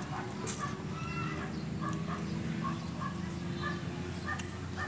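Short animal calls, like fowl, repeating about three times a second over a steady low hum, with a few sharp clicks.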